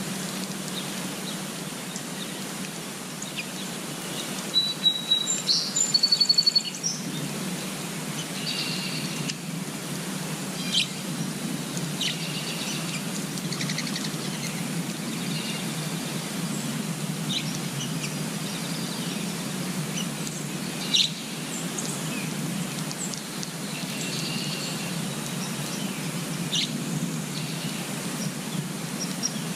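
Small birds chirping and calling in short high notes over a steady background hiss, with a quick, loud run of repeated high chirps about five seconds in.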